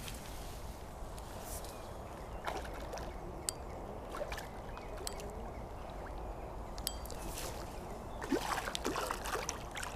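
Water splashing and sloshing at the bank's edge as a small hooked carp is played in close, busiest near the end, over a low steady rumble with a few sharp clicks.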